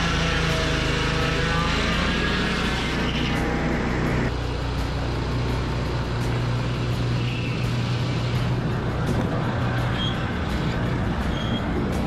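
Mahoe Minimax circular-blade sawmill running steadily with its engine under load as the blade cuts white oak; the sound changes abruptly about four seconds in, with a steady engine hum continuing.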